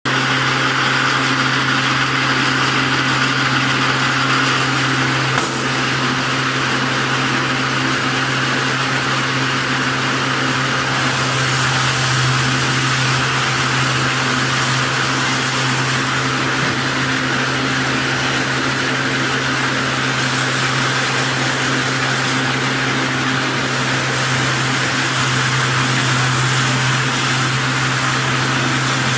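Round silage baler running, a steady mechanical drone with a constant low hum.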